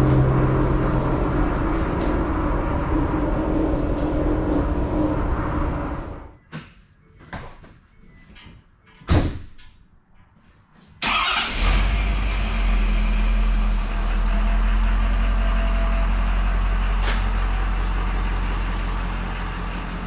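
Vehicle engine running, then falling away about six seconds in. A few short knocks sound in the quiet that follows. About eleven seconds in, an engine starts and settles into a steady low-pitched run.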